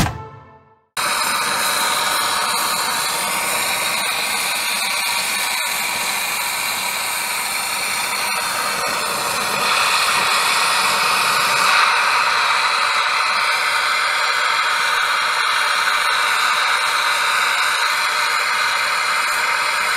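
Gas torch flame hissing steadily as it heats the end of a steel half-axle tube. It starts about a second in and gets a little louder about halfway through.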